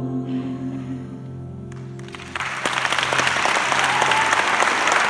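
The band's last held chord rings out and fades, then audience applause breaks in suddenly about two and a half seconds in and carries on loudly.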